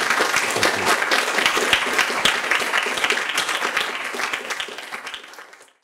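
Audience applauding, a dense patter of many hands clapping that fades out and cuts off near the end.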